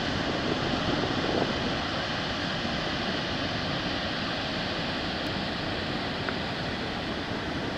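River water rushing over a rocky waterfall and through rapids: a steady, even rush of white water.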